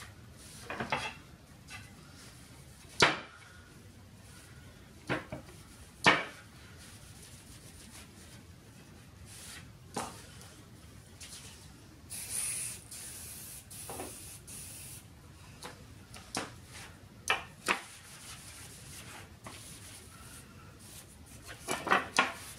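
Cloth wiping wooden tray boards, broken by sharp knocks as the boards are handled and set down on a wooden workbench, the loudest about three and six seconds in. About halfway through, an aerosol can sprays a hiss for about three seconds.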